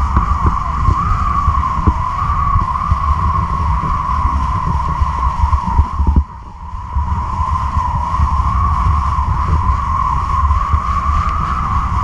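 Wind rushing over a camera mounted on a kite line: a low buffeting rumble under a steady, wavering whistle, dropping out for about half a second midway.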